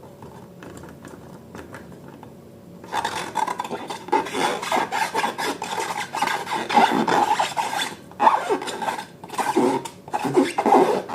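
Slime being mixed: quiet handling at first, then from about three seconds in a loud, dense run of sticky rubbing and crackling with rapid irregular strokes.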